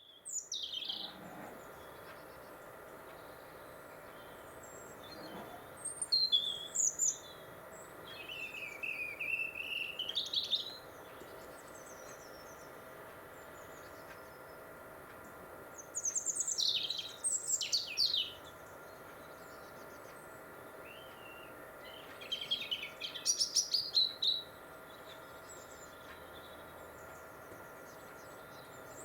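European robin singing in winter: short, varied, high-pitched warbling phrases of a second or two each, separated by pauses of several seconds. A faint steady hum lies underneath.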